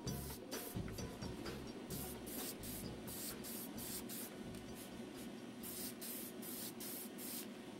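Gloss black paint being sprayed in short, repeated hissing bursts, with background music underneath.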